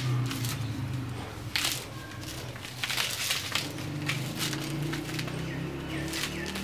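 Dry palm fronds and twigs crinkling and crackling as they are handled and pushed into a clay stove to lay a fire, in several short rustling bursts, the longest a little under halfway through.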